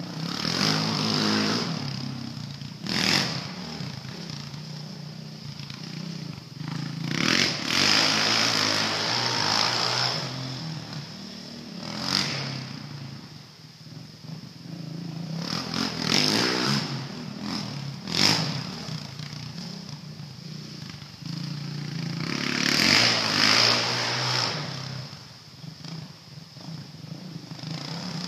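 Honda TRX450R quad's single-cylinder four-stroke engine running through a Two Brothers aftermarket exhaust as it is ridden around. The engine revs up and down over and over, with several sharp blips of throttle and a few longer pulls at higher rpm.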